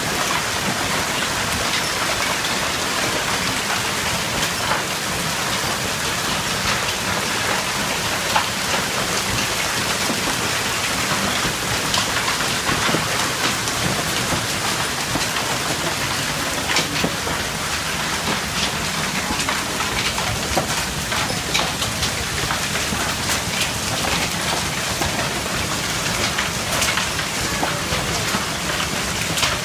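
Heavy hailstorm: hail pelting down in a dense, steady hiss, with frequent sharp ticks from individual hailstones striking.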